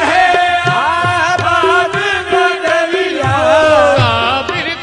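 Qawwali: a lead singer holds and bends a winding melody over a sustained harmonium line, with hand-drum strokes keeping the beat.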